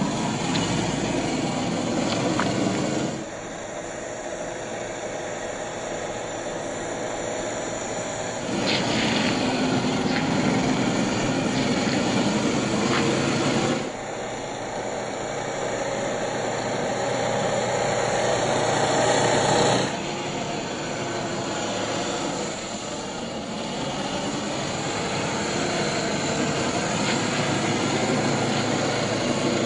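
A 1/10-scale RC crawler on an SCX10 III chassis running, its motor and drivetrain going steadily, slowed down to half speed, in several short clips that change abruptly.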